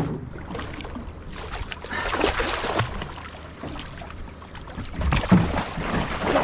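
Water splashing and sloshing beside a small boat's hull as a hooked tuna is worked toward a landing net, with a louder flurry of splashing about five seconds in.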